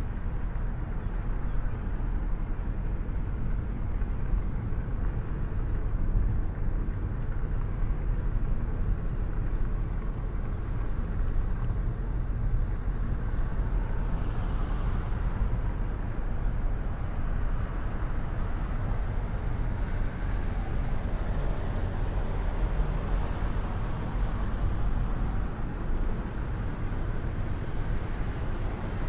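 Steady low rumble of a car driving slowly along a city street, heard from inside the cabin: engine and tyre noise with no sharp events.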